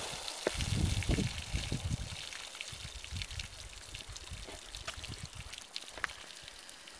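Water pouring and trickling out of bullet-holed plastic gallon jugs onto the ground, right after a 9mm shot, whose echo is still dying away at the start. There are a few low thumps in the first two seconds, then only a faint dribble with scattered drips.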